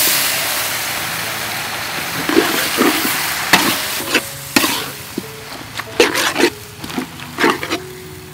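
Food sizzling in hot oil in a pan, loud at first and slowly easing off. From about two seconds in, a spatula stirs and scrapes against the pan in quick, separate strokes.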